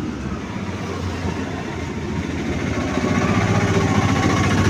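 An engine running steadily at idle, getting louder about three seconds in.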